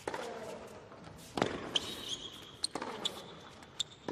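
A tennis ball bounced on a hard court, four times at an even pace about every second and a half, with a few short high squeaks between the bounces.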